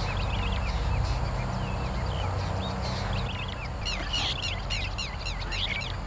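Many small birds chirping in short, quick calls that crowd together about four seconds in, over a steady low rumble.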